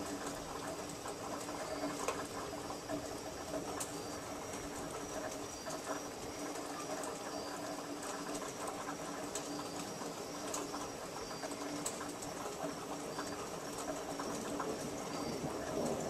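Light rain pattering and dripping as a thunderstorm dies away, with scattered sharp drips. Behind it run a steady high trill and a low hum.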